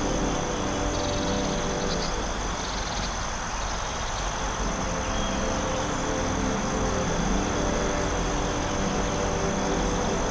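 Steady forest ambience: insects chirping in constant high tones, with a brief pulsing trill in the first few seconds, over an even low rumble and sustained low drone notes.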